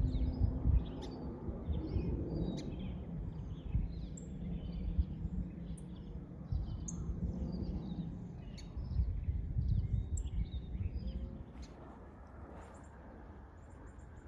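Small birds chirping and tweeting again and again over a low, uneven rumble that drops away near the end.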